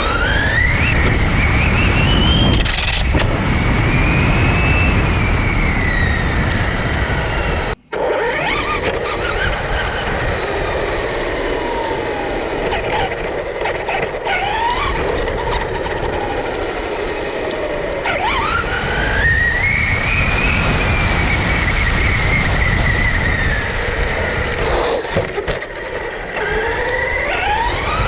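Traxxas Rustler RC car's brushless electric motor whining, its pitch climbing steeply as the throttle is applied and falling away as it eases off, several times over, over heavy wind and tyre rumble picked up by a GoPro strapped on the car. The sound cuts out briefly about eight seconds in.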